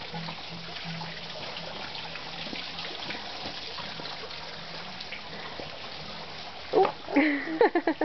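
A steady hiss with a low hum that pulses on and off, then near the end a short loud burst of a person's voice in quick pulses.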